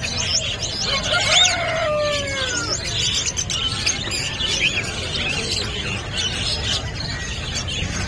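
Many small caged birds chirping and twittering together, with a couple of longer falling calls between about one and three seconds in, over a steady low background hum.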